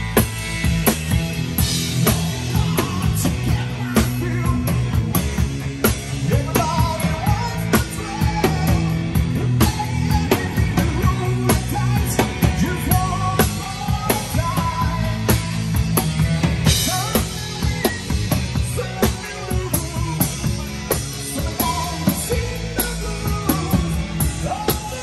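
A live rock band playing: drum kit, electric guitar and bass guitar, with a man singing lead vocals over them.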